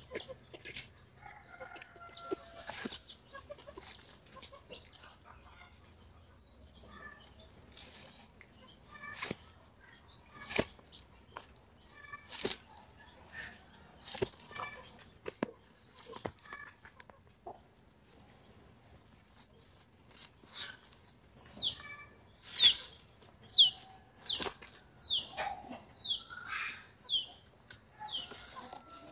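Irregular sharp knocks and taps over a steady high insect drone. Near the end comes a quick run of short, falling bird chirps, about two a second.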